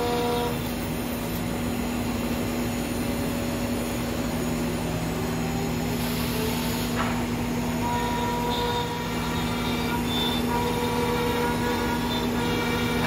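Anderson Stratos WFD CNC router with a 10-horsepower spindle running a wood-cutting job, a steady mechanical hum under it. A higher whine stops just after the start and comes back about two-thirds of the way through, with a short hiss a little before that.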